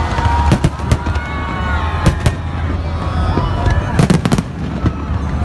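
Fireworks display: aerial shells bursting in a string of sharp bangs and crackles over a steady low rumble, with a quick cluster of bangs about four seconds in.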